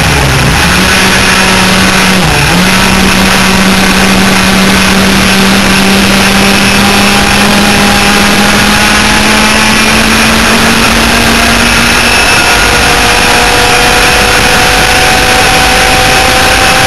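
Twin 100cc two-stroke kart engines on an enduro laydown kart running loud at racing revs. They dip briefly twice in the first few seconds, then climb slowly in pitch as the kart accelerates.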